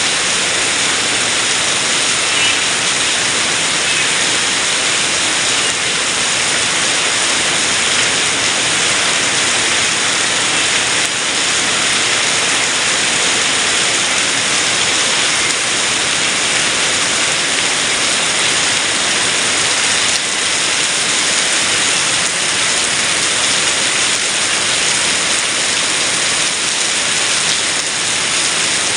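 Heavy rain pouring down in a steady, loud hiss, with no let-up.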